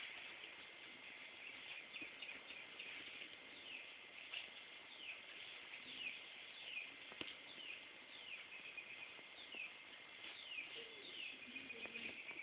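Faint, rapid, high chirps, each falling in pitch, repeated all through like bird song.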